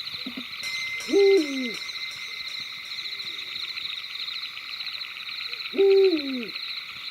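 Owl hooting twice, each hoot a bit over half a second, held then dropping in pitch, with a fainter hoot in between. A steady high pulsing night chorus runs underneath.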